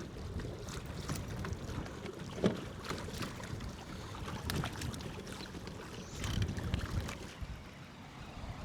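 Water sloshing against a kayak hull, with scattered small knocks and clicks and wind on the microphone.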